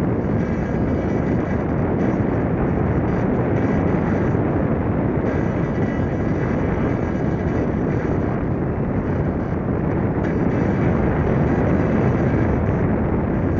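Steady rush of air over the onboard camera's microphone on a small unpowered F3K discus-launch glider in gliding flight.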